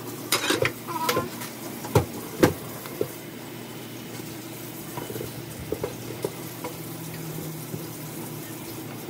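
Kitchen tap running steadily into a sink while beef stew meat is rinsed, with a plastic bag rustling and a bowl knocking against the sink several times in the first three seconds, loudest about two and two and a half seconds in, and a few lighter taps later.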